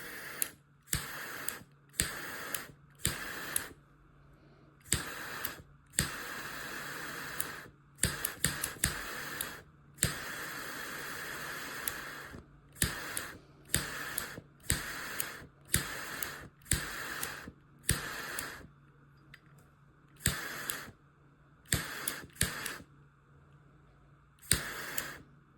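Zippo 65827 double-torch butane lighter insert being clicked again and again, about once a second. Each piezo click is followed by a short hiss of gas or torch flame, and a few of the hisses are held for one or two seconds. The lighter is struggling to fire up reliably.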